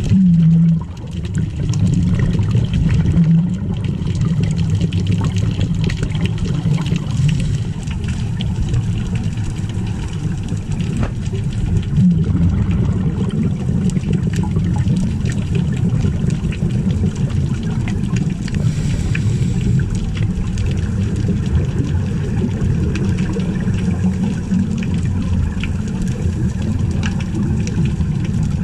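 Steady muffled low rumble of underwater noise picked up through a camera's waterproof housing, with faint water and bubble sounds.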